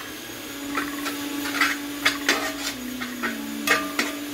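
A spoon stirring and scraping masala in a cooking pan, in short repeated strokes about every half second to a second, over a steady low hum.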